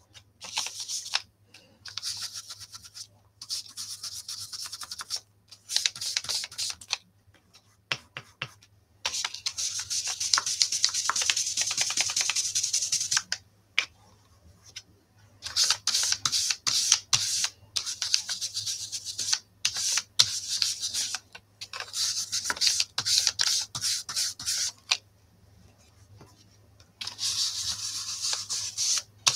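Foam ink blending brush rubbed over white die-cut cardstock, inking the stems green: a scratchy brushing hiss in bursts of quick back-and-forth strokes, with short pauses between bursts.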